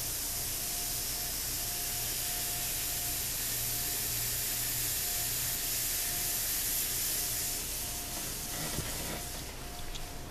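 Several N-scale model steam locomotives running on track at once, their recordings overlaid: a steady hiss with a low hum and a faint, broken whine.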